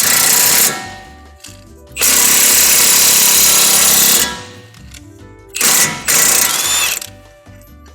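Impact wrench with a 21 mm socket hammering in three bursts, the middle one about two seconds long, driving a wheel stud installation tool to pull a new wheel stud into the hub.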